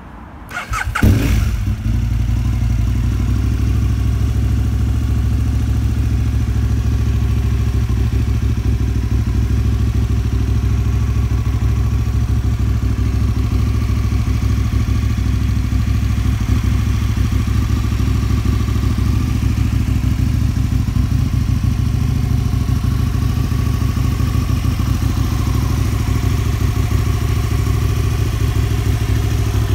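Aprilia Tuono 1000's 998 cc V-twin, fitted with a Blue Flame aftermarket exhaust, cranks and fires about a second in. It then idles steadily.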